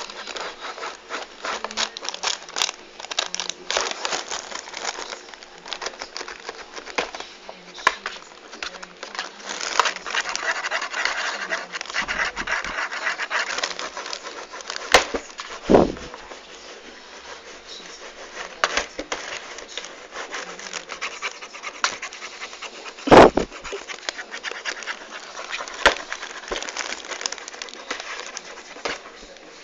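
Cat scratching and batting at a cardboard cereal box: rapid crackling and scratching of cardboard, with a louder thump about sixteen seconds in and another about twenty-three seconds in.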